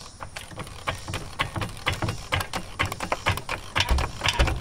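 Pittsburgh 2-ton hydraulic floor jack being pumped by its handle to lift the car, an irregular run of mechanical clicks and clacks that grows denser, with two heavier thumps near the end.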